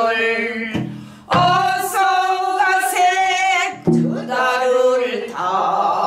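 A woman singing a pansori-style danga in a strong voice with long held notes and a wide, wavering vibrato, broken twice by short breaths. She keeps time on a buk barrel drum.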